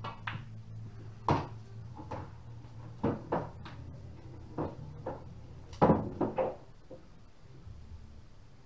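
Pool balls clacking: the cue striking the cue ball, then a string of sharp irregular clacks of balls hitting each other and the cushions as a ball is potted, the loudest about a second in and in a quick cluster around six seconds in. A low steady hum runs underneath.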